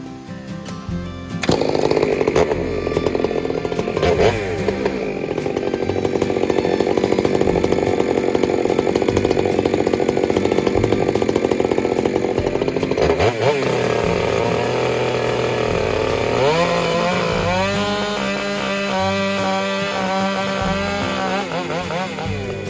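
Chainsaw running hard, cutting into fir logs, its engine pitch climbing about two-thirds of the way through; music plays faintly underneath.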